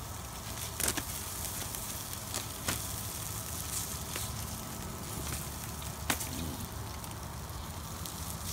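Chicken breasts sizzling on perforated foil over a charcoal grill: a steady hiss broken by a few sharp pops.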